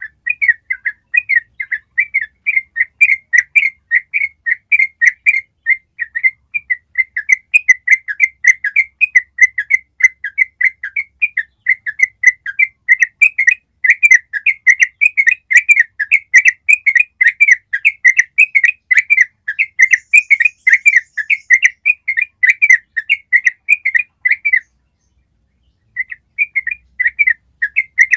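Yellow-vented bulbul (trucukan) singing a long 'ropel': a continuous run of rapid repeated chirping notes, about four a second. The run breaks off for a second or so near the end, then starts again.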